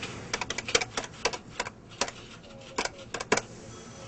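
Buttons on a desk phone's keypad pressed in quick, irregular succession while a number is dialled. They sound as a run of about fifteen sharp clicks over some three seconds.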